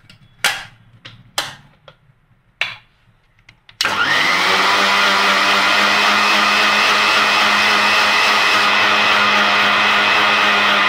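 A few knocks and clicks as the lid and steel jar of an electric mixer grinder are fitted. About four seconds in, the motor starts with a quick rising whine and then runs at a steady speed, blending buttermilk.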